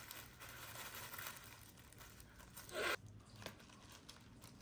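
Faint crinkling and rustling of plastic packaging as a wig is handled.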